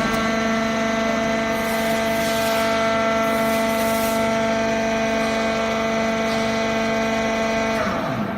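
Hydraulic foam baler running, its pump motor giving a steady whine, with a hiss for a couple of seconds; the whine stops shortly before the end.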